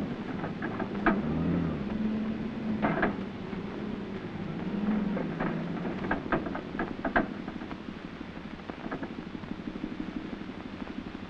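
Forklift engine running and changing pitch as it moves and lifts, with a series of clanks and knocks from the load and mast, thickest about six to seven seconds in. Near the end the engine settles to a steadier run with a fast, even ticking.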